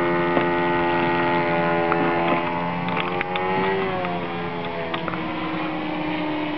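Model airplane engine droning in flight, a steady buzzing tone. About three to four seconds in its pitch rises slightly, then drops and settles lower, and it grows a little quieter.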